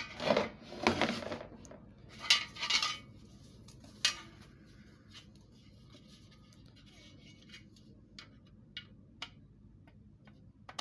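Plastic dish panels and foam packing sheets of a LiteBeam M5 antenna being handled: two loud rustles in the first three seconds, a sharp click about four seconds in, then a few light plastic ticks near the end.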